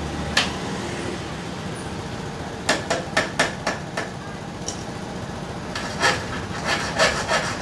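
Sharp knocks like hammer taps, in irregular clusters: a single one about half a second in, a quick run of five or six around three seconds in, and more near the end, over a steady low hum.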